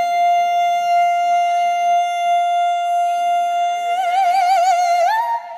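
An unaccompanied solo singer holds one long high note on the word "see" in a gospel hymn. The note is steady at first, breaks into vibrato and runs about four seconds in, and climbs to a higher note near the end.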